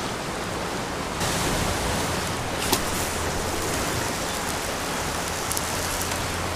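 Steady rushing wash of small waves against a lava-rock shoreline, with one brief click a bit under three seconds in.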